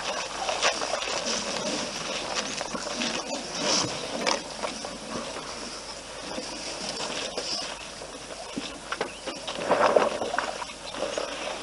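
African elephants drinking at a waterhole's edge: water sloshing and splashing in short irregular strokes, with a louder splash about ten seconds in.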